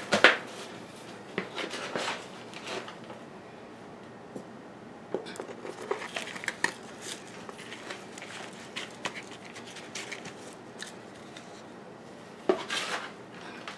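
Hands pressing and firming potting soil around a plant in a plastic pot: scattered scratchy rustles of soil and soft knocks against the pot, with louder rustles at the start and about twelve seconds in.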